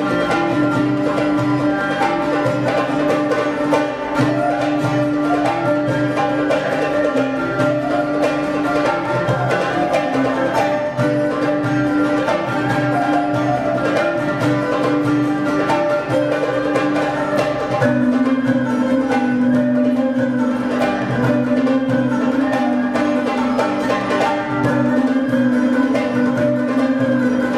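Live ensemble music: bowed and plucked string instruments over hand-drum percussion, with a held low note that steps down in pitch about two-thirds of the way through.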